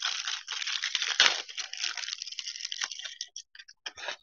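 Foil wrapper of a basketball trading-card pack being torn open and crinkled: a dense crackling rustle that thins to scattered crinkles near the end.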